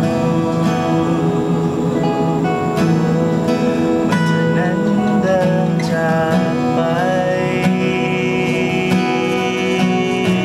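Two acoustic guitars strummed and picked together, with male voices singing over them.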